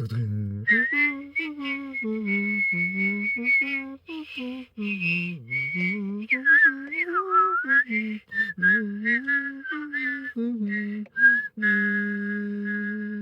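A person whistling and vocalising together the Joetsu Shinkansen's folk-song chime melody, a run of short sliding notes that ends on one long held note.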